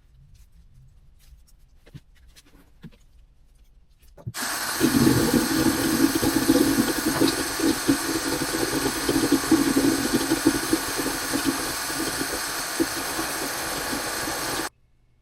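A motor running steadily with a dense whirring noise. It starts suddenly about four seconds in and cuts off abruptly near the end, after a few faint light clicks.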